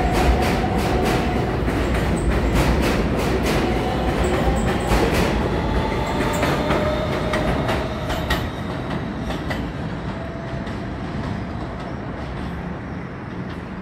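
New York City subway train passing and pulling away: wheels clacking over the rail joints with a thin wheel squeal, fading out after about eight seconds.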